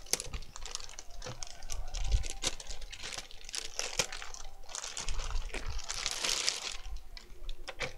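Clear plastic bag crinkling and rustling in irregular bursts as hands work a benchtop oscilloscope out of it, with many small clicks and taps.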